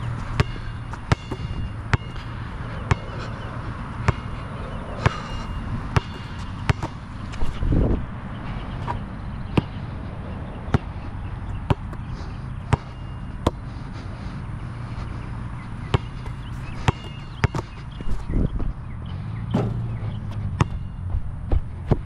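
Molten BG3800 basketball bouncing on an outdoor court: sharp bounces at an uneven pace, every half second to a second or so, over a steady low rumble.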